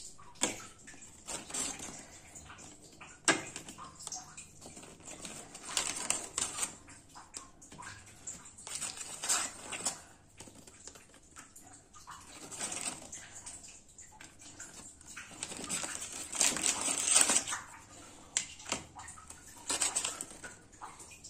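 Fried gulgule being set down one at a time on a plastic plate by hand: irregular soft knocks, scrapes and rustles with a few sharp clicks, busiest a few seconds before the end.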